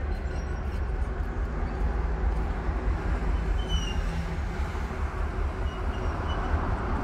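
Freight train's goods wagons rolling steadily over a concrete railway bridge, a continuous rumble of wheels on rails.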